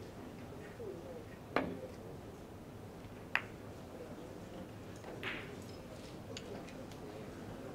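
Billiard cue tip striking the cue ball with a sharp click about a second and a half in, then a clack of ball hitting ball nearly two seconds later, and a softer knock about five seconds in, over a faint murmur in the hall.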